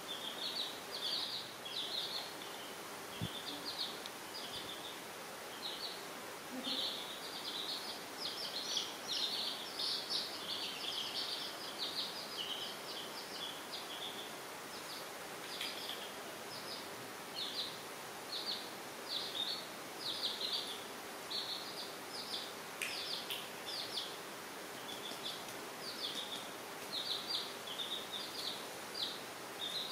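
Baby chicks peeping: many short, high chirps in quick runs with brief gaps between them.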